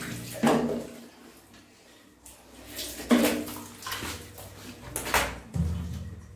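Water being splashed over a wet dog during its bath: three sudden splashes, roughly two and a half seconds apart.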